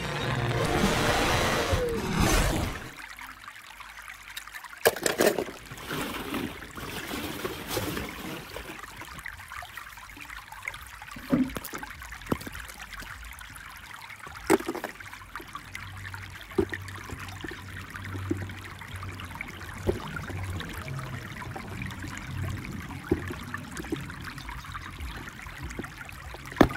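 A loud burst of film soundtrack for the first couple of seconds, then a hand working a plastic capsule egg packed with kinetic sand: scattered light plastic clicks and taps over a steady trickling hiss.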